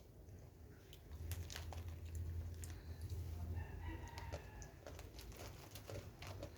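A rooster crowing once, about three and a half seconds in, over scattered sharp clicks and a low hum.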